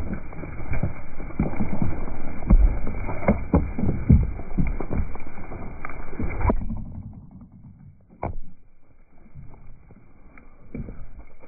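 Hooves of a flock of Zwartbles ewes trampling close around a phone lying on the ground, with heavy thuds and knocks as the sheep jostle and bump it. The noise drops suddenly about six and a half seconds in, and there is one more sharp knock about two seconds later.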